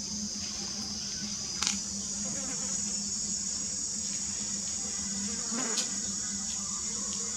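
Steady, high-pitched drone of insects, with a low steady hum beneath. Two short clicks come about one and a half seconds in and again near six seconds.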